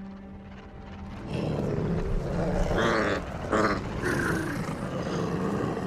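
A large animated wolf creature growling low and rough, starting a little over a second in.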